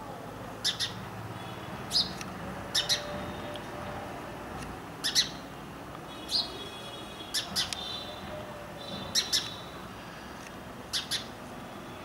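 Indian house sparrow chirping: short, sharp chirps, mostly in quick pairs, every second or two.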